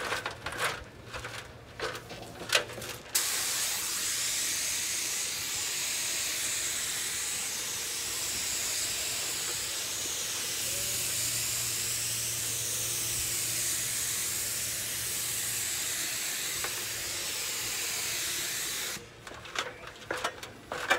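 3M AccuSpray paint spray gun with a 1.4 head hissing steadily as compressed air atomizes topcoat paint for a light first coat. A few light knocks come first; the spray starts about three seconds in and cuts off about two seconds before the end.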